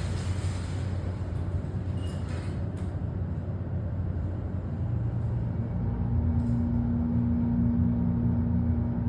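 Hydraulic passenger elevator running: a steady low hum that grows louder about five seconds in, with a steady higher tone joining it about a second later.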